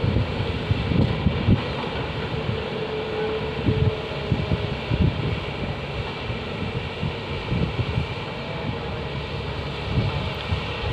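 Diesel engines of Tata Hitachi excavators working a coal face, with a Volvo 460 mining tipper running beside them: a steady mechanical drone with a faint held tone. Wind buffets the microphone in low gusts a few times.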